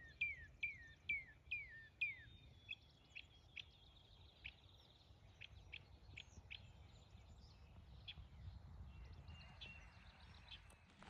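A songbird singing a series of quick downslurred whistled notes, about two a second, for the first couple of seconds. Scattered short high chips and a brief high trill follow, over a faint low outdoor rumble.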